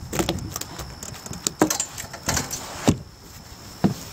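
Irregular clicks, knocks and light rattles as a small freshwater drum is landed and handled on a wooden dock with fishing tackle, a few of the knocks heavier, with a dull thud.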